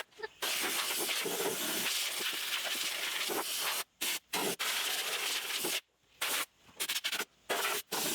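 Compressed air from a blow gun hissing as it blows dust out of a sawmill's hydraulic control box and off the lever micro switches, which dust had made sticky. One long blast of about three and a half seconds, then a string of shorter blasts.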